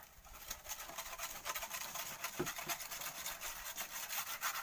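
A hand tool scraping through volcanic sand and gravel: a rapid run of short, gritty scrapes that grows louder about a second in.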